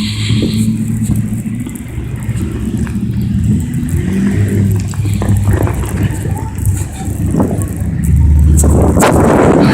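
Outdoor road noise heard while riding: a steady low rumble of passing traffic, swelling louder for the last couple of seconds.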